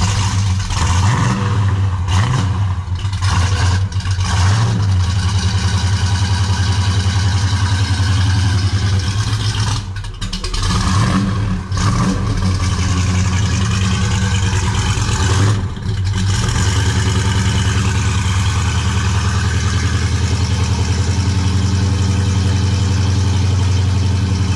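Olds 350 V8 in a 1968 Oldsmobile Cutlass running just after a cold start, exhaust through long-tube headers and 2.5-inch Pypes Street Pro mufflers. It has a loud, steady, pulsing idle, with a few brief changes in engine speed in the first half.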